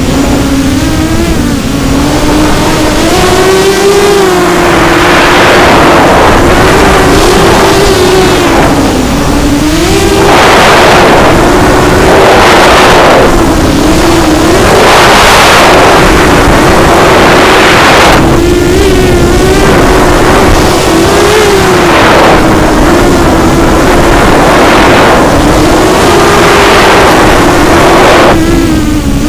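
QAV250 racing quadcopter's electric motors and propellers whining in flight, the pitch wavering up and down with the throttle, with repeated loud rushing surges every few seconds as the throttle is punched.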